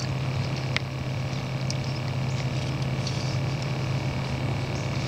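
Steady low mechanical hum with no change in pitch, with a few faint clicks over it.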